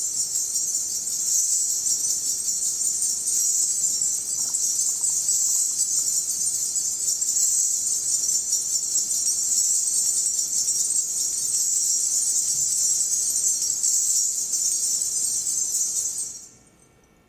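A sound effect being recorded: a steady, high continuous jingling that stops abruptly about sixteen seconds in.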